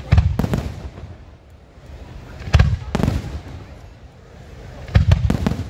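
Fireworks display shells bursting in loud booms that come in pairs: two just after the start, two more about two and a half seconds in, and another pair near the end. Each boom trails off over about a second.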